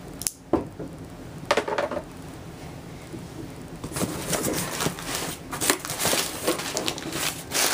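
Cardboard box being handled and opened: a few separate knocks in the first two seconds, then from about four seconds in, steady rustling and crinkling of packing newspaper with clicks.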